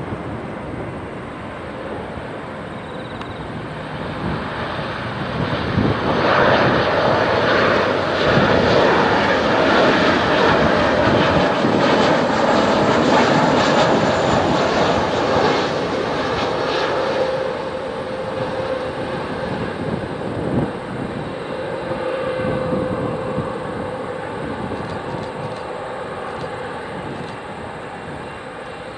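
Boeing 737-800 jet engines on final approach passing close by: the engine noise builds, stays loud for about ten seconds, then slowly fades as the aircraft moves away.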